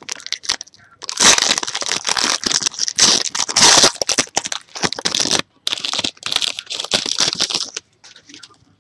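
A trading-card pack wrapper being torn open and crinkled by hand. The crackling comes in two long stretches, split by a brief pause about five seconds in.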